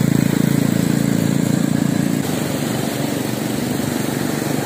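Small quad bike (ATV) engine running as it drives away over sand; its drone weakens about two seconds in.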